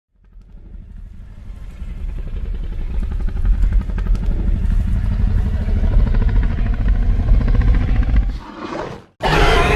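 Indominus Rex creature sound effect: a deep, rattling growl that builds steadily louder for about eight seconds, then fades and cuts off, followed near the end by the sudden start of a loud roar.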